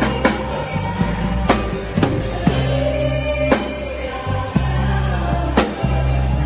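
Live church praise music from a band and choir: a drum kit keeps a steady beat over sustained bass notes while the choir sings.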